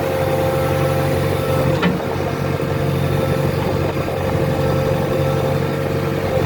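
JCB 3DX backhoe loader's diesel engine running steadily, heard from inside the cab, with a steady tone above the engine note. There is a single short click about two seconds in.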